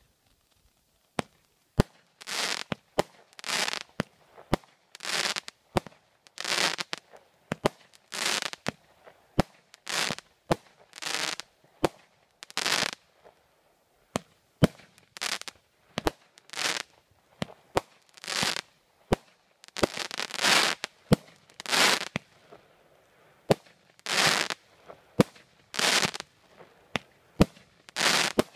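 Fireworks firing a long rapid series of shots: sharp bangs about once a second, alternating with short hissing bursts, continuing through to a final volley of bursts near the end.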